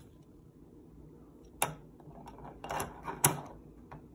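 A plastic razor and its blade-cartridge case being handled on a wooden tabletop: two sharp clicks about a second and a half apart, with light rustling and small taps between them.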